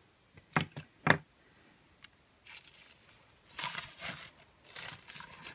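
Taper candles set down on a cloth-covered table: two quick knocks about half a second apart. From about two and a half seconds in comes a stretch of soft rustling and crinkling as packaging is handled.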